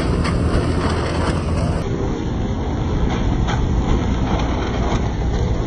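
Motorcycle and moped engines running among a moving group of riders, under a steady rush of road and wind noise with a deep rumble.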